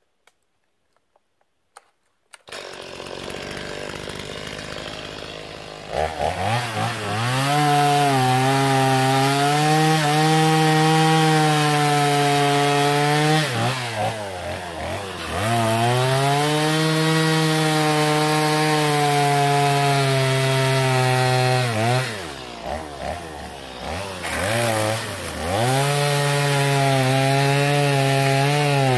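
Stihl chainsaw starting up about two seconds in, then from about six seconds in running at full throttle as it cuts through a downed poplar log. It eases off twice between cuts.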